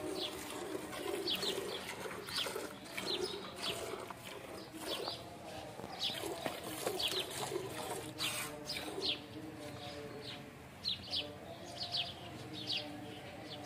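Hand milking into a steel pail already half full of milk: short squirts of milk hitting the frothy milk, irregular at about one or two a second, with pigeons cooing in the background.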